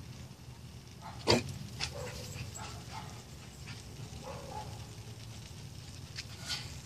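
A dog barking several times, over a low steady hum. One sharp, loud crack comes about a second in.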